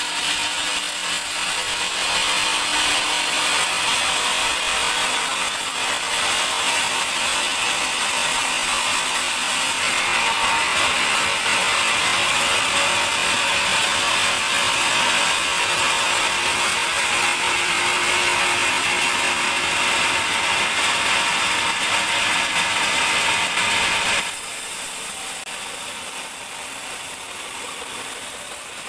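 Sawmill band saw cutting a large teak log: a steady, loud sawing noise that drops sharply about 24 seconds in, leaving a quieter running sound.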